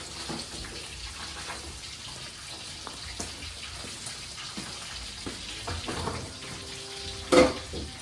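Food sizzling in a wok on a gas stove as it is stirred with a spatula: a steady hiss with many small crackles. A brief louder sound comes near the end.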